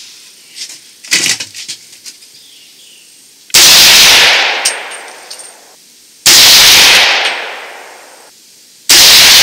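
Three shots from a Ruger Mini-14 rifle chambered in 300 AAC Blackout, fired about two and a half seconds apart, the last near the end. Each crack fades away in an echo lasting about two seconds.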